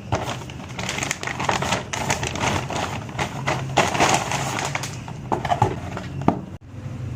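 Crispy fried chicken crunching as it is bitten and chewed close to the microphone, in dense, irregular crackles. It stops abruptly near the end, leaving a low hum.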